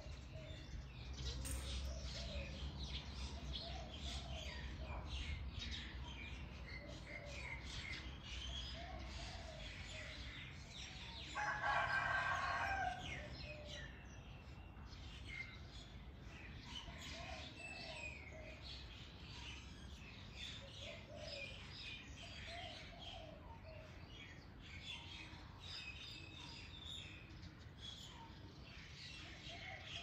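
Birds chirping and calling throughout, with a rooster crowing once near the middle, about a second and a half long and the loudest sound. A low steady hum sits underneath for the first two-thirds.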